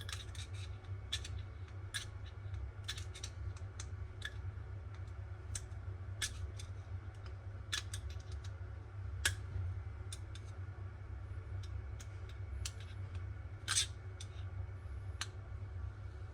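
Irregular small clicks and ticks of hard parts and hand tools being handled during a kitchen faucet installation, two of them louder about nine and fourteen seconds in, over a steady low hum.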